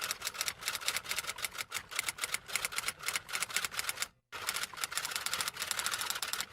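Rapid typing: a fast, uneven run of key clicks, several a second, with a brief pause about four seconds in.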